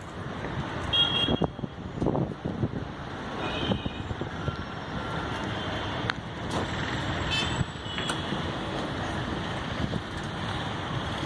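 Steady traffic-like rumble of motor vehicles, with a few short high tones about a second in and near three and a half seconds, and a rapid stuttering high sound a little past the middle.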